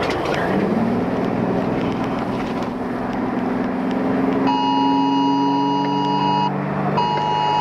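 Emergency-alert attention tone, the two-tone signal used by phone wireless emergency alerts and weather radios, sounding for about two seconds and then, after a short pause, for one more second near the end. Under it is steady wind noise and a low hum that rises in pitch about half a second in and then holds steady.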